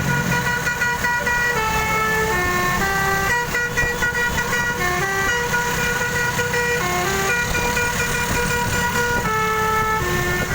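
A bus's basuri 'telolet' multi-tone musical horn plays a melody without pause: sustained notes that step up and down in pitch about twice a second, over a low rumble.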